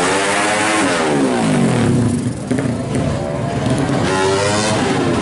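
Honda Supra four-stroke single bored up to 200 cc with an oversized carburettor, revved hard: the revs spike at the start and wind down over about two seconds, then climb again about four seconds in.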